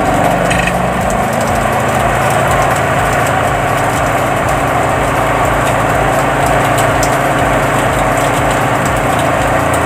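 Spin dryer's electric motor spinning the basket at speed, a steady mechanical hum with no change in pitch: the dryer running properly on fresh wiring.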